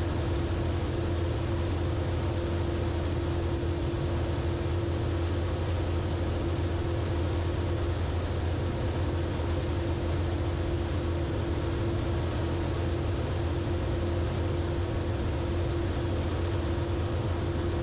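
Zenith CH 650 light sport aircraft in steady flight: the constant drone of its direct-drive, air-cooled, four-cylinder 118-horsepower engine and propeller, holding one even pitch.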